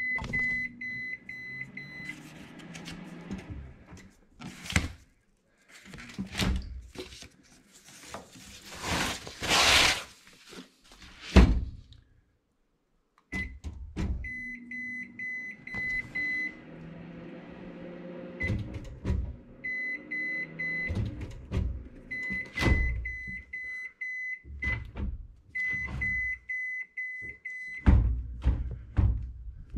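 ZLINE microwave drawer's drive motor running as the drawer powers open and closed, with a high electronic beep pulsing rapidly during the movement. Scattered knocks and clunks between the runs.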